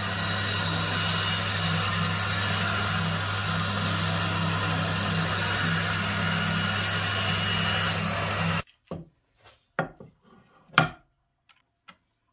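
Homemade plywood band saw running and cutting a plywood sheet: a steady motor hum under the hiss of the blade going through the wood. It cuts off suddenly about eight and a half seconds in, followed by a few sharp knocks as a wooden fence is handled on the saw table.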